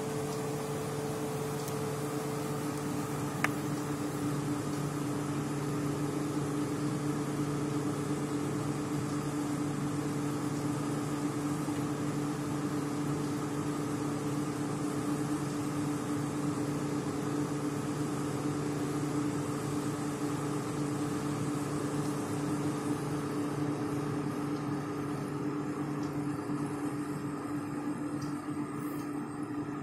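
A steady machine hum with a low, even drone and background hiss, and a single sharp click about three and a half seconds in.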